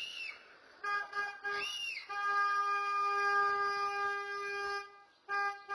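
Car horn honking: a couple of short honks, then one long blast of nearly three seconds, then two more short honks near the end. Two brief chirps that rise and fall in pitch come in at the start and just before the long blast.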